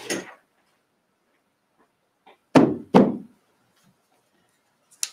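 Two pattern weights set down one after the other on a paper pattern over fabric on a cutting table: two solid knocks about half a second apart.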